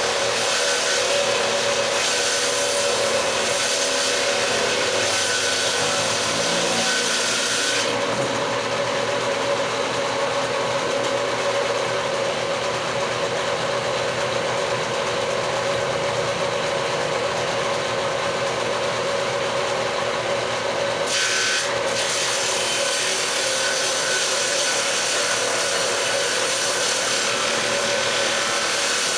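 Power tool running steadily and cutting into wood, a continuous rasping sound over a steady motor hum; it sounds duller for a stretch in the middle.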